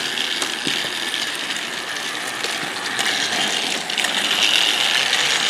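Battery-powered TrackMaster toy engine running on plastic track: a steady whirring of its small motor and gears with scattered clicks of the wheels over track joints.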